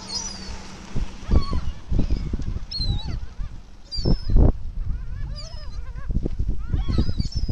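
A flock of waterbirds calling: many short, overlapping squawks throughout, over a low, uneven rumble.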